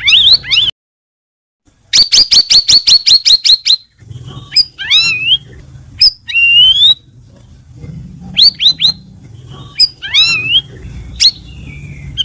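Straw-headed bulbul (cucak rawis) singing loud, clear whistled phrases that glide up and down. The song breaks off completely for about a second near the start, then comes back as a fast run of about a dozen sharp down-swept notes, followed by more gliding whistled phrases.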